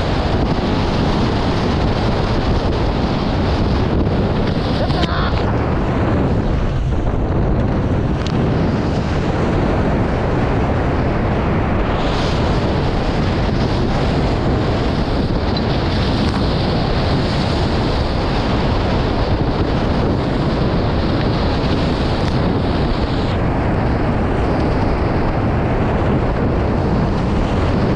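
Loud, steady wind noise on the microphone mixed with rushing water and spray from a Nacra 20 beach catamaran's hulls sailing fast in strong breeze.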